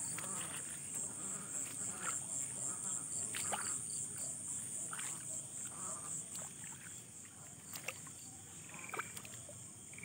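Crickets trilling steadily in a high, fast-pulsing chorus, with scattered faint short clicks and calls beneath.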